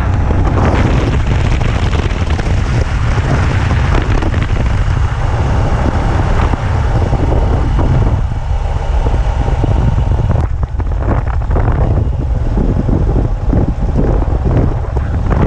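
Wind buffeting the microphone with a heavy, steady low rumble and rushing noise over it, as from a moving vehicle. The rushing thins out and turns gusty after about ten seconds.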